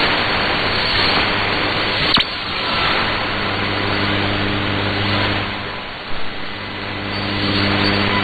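Shortwave AM signal on 7475 kHz received through a software-defined radio: heavy static hiss that swells and fades, with faint steady low tones of the station's interval music beneath it. A sharp static crack comes about two seconds in.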